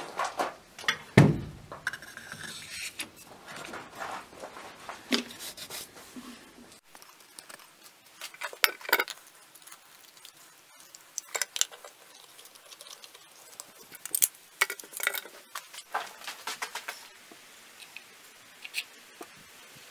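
Scattered light clicks, clinks and knocks of a steel sword tang and walnut handle pieces being handled and fitted together, with one louder thump about a second in.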